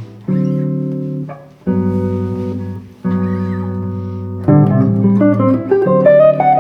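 Jazz guitar playing a 2-5-1 phrase in G major. Three chords are struck and left to ring, one about every second and a half, then a quick run of single notes rises over a held chord near the end.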